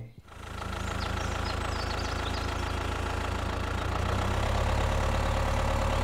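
Steady, low, diesel-like engine running for a toy mini tractor towing a trailer. It fades in over the first second and gets a little louder about four seconds in.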